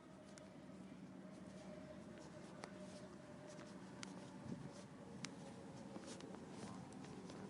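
Faint footsteps: scattered light taps and scuffs at an uneven pace, over a steady low hum.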